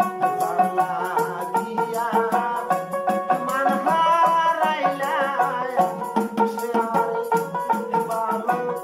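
Bengali folk song with a male lead voice, a plucked long-necked dotara, keyboard, and a small jingled hand drum with rattling percussion keeping a steady, busy beat. The voice comes in most strongly about halfway through.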